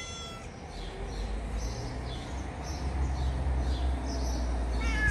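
Small birds chirping in short calls about twice a second over a steady low rumble. A cat gives a short meow right at the end.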